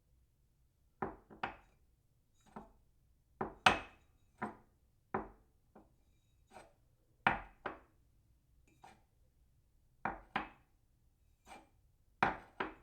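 Cup set down on a saucer again and again: short, sharp clinks at irregular intervals, often in quick pairs.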